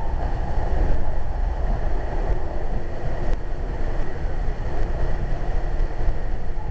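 Running noise of a Metrolink commuter train heard inside a passenger car while it travels at speed: a steady low rumble.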